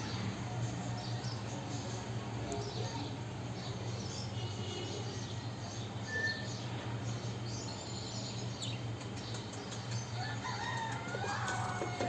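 Faint scattered bird chirps and calls over a steady low hum, with a longer run of calls near the end.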